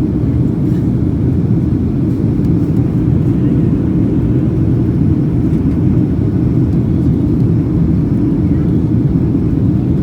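Airplane noise: a loud, steady low rumble that holds level throughout.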